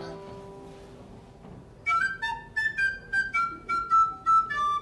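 A fading musical tail, then about two seconds in a high, flute-like woodwind plays a quick melody of short, separate notes.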